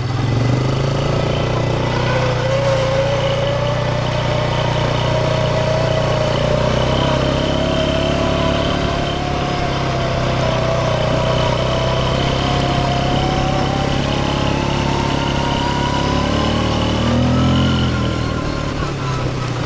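Vehicle engine running while driving along a rough dirt track, with a steady low rumble and a whine that climbs in pitch over the last several seconds.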